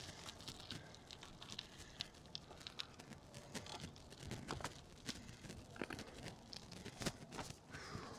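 Scattered light crunches, clicks and rustles from a cyclist pulling over and getting off the bicycle.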